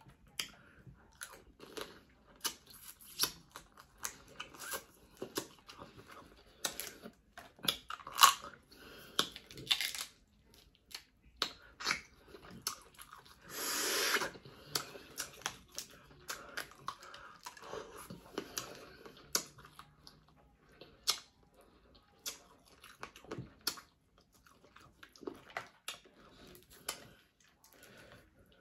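Dungeness crab being eaten: shell cracking and tearing, and the meat chewed, in a long run of short sharp crackles, with one longer, louder rasp about fourteen seconds in.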